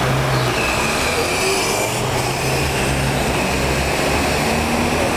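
Steady rush of traffic through slushy, hail-strewn floodwater: cars and a box van driving through it, tyres sloshing and spraying water, with engines running underneath.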